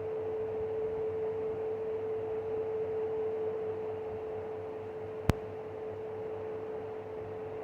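Fan running with a weird steady humming tone over its faint airy noise. There is one sharp click about five seconds in.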